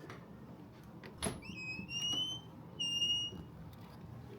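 A door is unlatched with a click, then squeaks twice on opening: the first squeak rises in pitch, and the second is shorter and holds one pitch.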